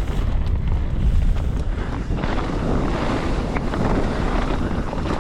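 Wind rushing over a GoPro's microphone as a mountain bike rolls fast down a dirt downhill trail, with a steady low rumble from the tyres on the ground and scattered small clatters from the bike.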